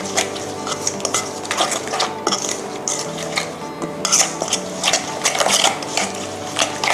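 A metal spoon stirring and scraping a wet lemongrass marinade paste around a stainless steel mixing bowl, with irregular clinks and scrapes of spoon against bowl.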